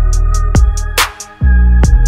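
Backing music with a heavy bass and a steady beat, dropping out briefly a little over a second in before coming back in full.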